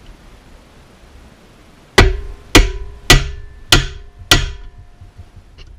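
Ball-peen hammer tapping drive pins into a speed-chart plate on a South Bend drill press cover: five sharp metal strikes about half a second apart, starting about two seconds in, each leaving a ringing tone. The cover vibrates under the blows, so, as the man says, he's not getting a solid hit.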